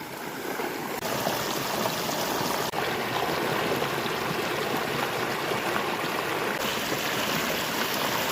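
Water rushing and flowing steadily, as of a stream or runoff swollen by storm rain; the sound changes abruptly in tone a few times.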